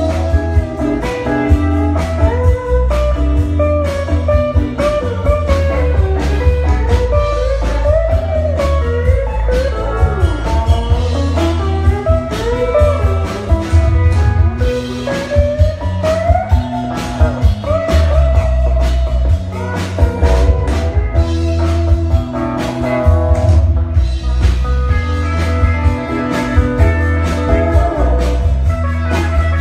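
Live country band playing: electric guitar lead with bending notes over bass guitar and a steady drum beat.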